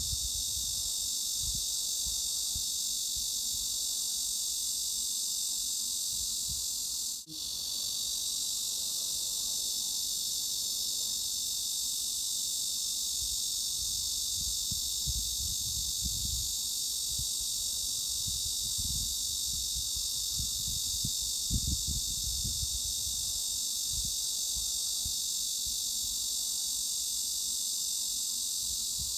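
Cicadas buzzing in a steady, unbroken high-pitched drone, played as a tinnitus masking sound centred around 3.5–4 kHz. The drone drops out for a split second about seven seconds in.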